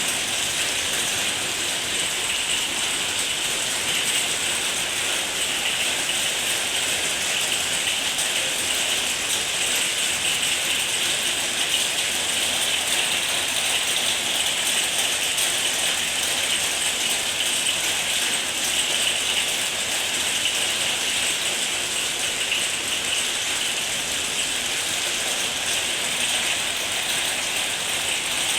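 Steady rain falling in a dense, even patter, with no let-up.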